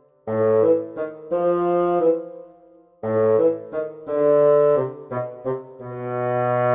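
Outro music: a tune of held notes in two phrases, with a short break about three seconds in.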